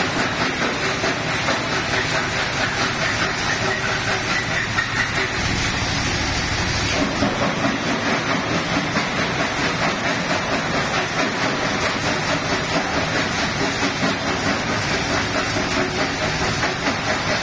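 Stone crusher running under load: jaw crusher breaking rock while crushed gravel rattles through a rotating perforated trommel screen and pours down steel chutes. The result is a loud, steady, dense clatter with a fast rattling pulse.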